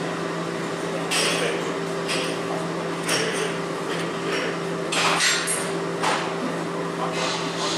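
Combination wrench clinking and knocking against the bolts of a car's strut-to-steering-knuckle mount, short metallic hits about a second apart with a quick cluster near the middle, over a steady low hum.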